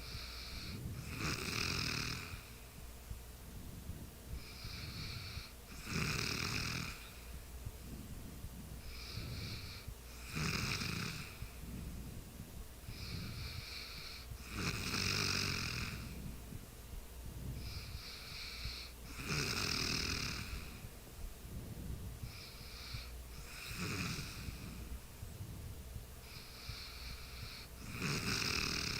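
A sleeping person snoring in a steady rhythm, about one breath every four seconds. Each breath is a shorter, softer sound followed by a louder one.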